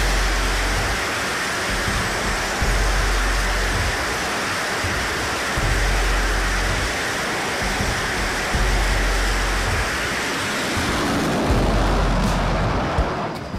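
F/A-18 jet engines running at high power on a carrier flight deck: a loud, steady roar, with wind buffeting the microphone in low thumps. The roar swells slightly about twelve seconds in as a jet is catapulted off, then falls away near the end.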